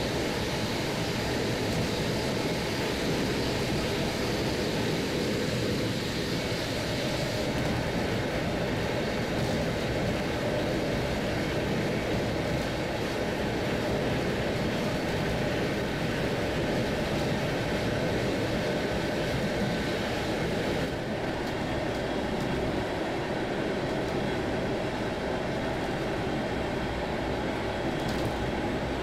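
Steady running noise heard from inside a German n-Wagen passenger coach travelling at speed: wheels rolling on the rails with a rushing wind-like hiss. The noise shifts slightly in tone about a quarter of the way in and again about two-thirds in.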